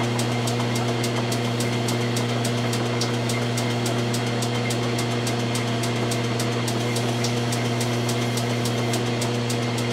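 Logan metal lathe running steadily with a rifle barrel spinning in its chuck: an even motor hum with a fast, regular ticking, about five ticks a second.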